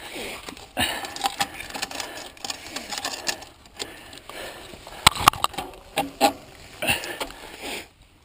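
Mountain bike being handled by hand after its chain has come off: a run of metallic clicks and rattles from the chain and drivetrain, mixed with scraping and rustling. The sharpest clicks come a little past the middle.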